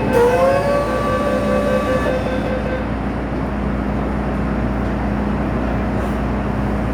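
MTR Tsuen Wan Line M-train running, heard from on board: a traction motor whine of several tones glides up in pitch, levels off and fades out within the first three seconds, leaving the steady rumble of the train rolling along the track.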